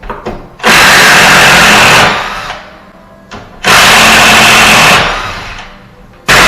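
Power drill-driver backing screws out of the door fittings: two runs of about a second and a half each, the second starting about three and a half seconds in, and a third starting near the end.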